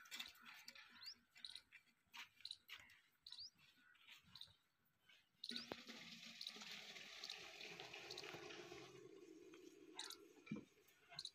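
Fresh milk being poured from a steel bucket into an aluminium milk can: a steady splashing pour that starts about halfway through and lasts about four seconds. Before it come scattered faint clicks and chirps.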